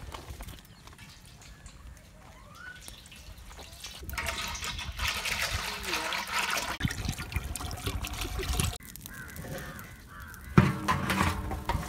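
Cooking oil pouring in a steady stream into a deep stainless-steel pot, for a few seconds mid-way. Near the end a sudden loud knock, then a crow cawing.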